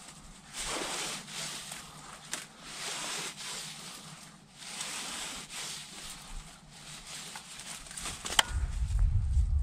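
Dry cattail and reed stalks rustling in the wind, swelling and fading about once a second. Near the end there is a sharp click, then a low rumble of wind buffeting the microphone.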